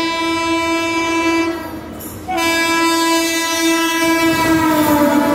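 Horn of a WAP-5 electric locomotive running through: a blast of about a second and a half, then after a short gap a long second blast whose pitch drops near the end as the locomotive passes. The train's rumble grows beneath it.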